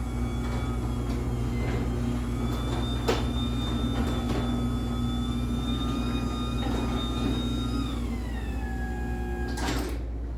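LiftMaster 84505R belt-drive garage door opener running a door through its travel: a steady motor whine with occasional clicks from the door. About eight seconds in the whine glides down as the motor slows, and it ends with a clunk as the door stops.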